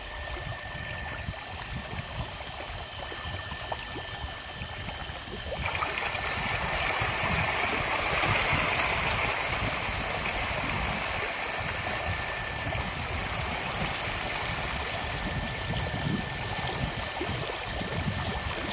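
Running water, a steady rushing flow that gets louder and fuller about six seconds in.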